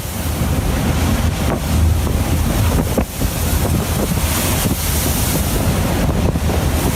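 Strong wind buffeting the microphone over heavy, rough seas, with a loud low rumble and a couple of sharp knocks.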